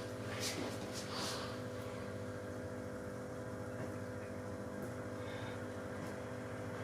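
A steady mechanical hum with several fixed tones, with a couple of short rustling scrapes in the first second or so.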